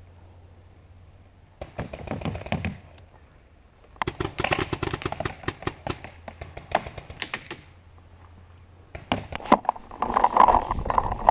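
Paintball marker firing in rapid strings of sharp shots: a short burst, then a longer fast string lasting several seconds, then a few separate shots. A rustling noise follows near the end.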